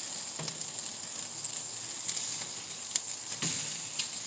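Steaks and sausages sizzling on a charcoal grill: a steady high hiss with scattered pops and crackles.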